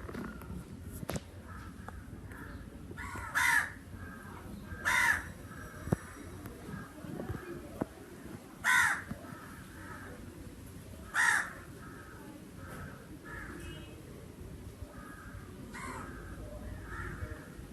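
Crows cawing: five loud, harsh single caws a few seconds apart, with fainter caws from other crows between them.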